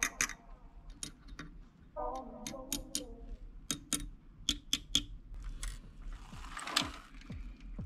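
Small, sharp clicks and taps of a metal precision screwdriver and fingers on the plastic chassis and suspension parts of a 1/10-scale RC truck, coming irregularly, a dozen or more.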